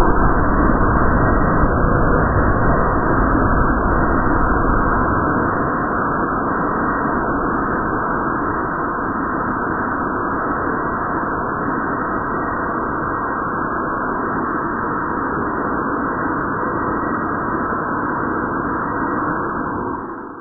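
Small rocket motor of an MHD plasma engine test rig firing, a steady loud rushing noise. It is a little louder for the first five seconds, then holds even, and dies away at the very end as the burn ends.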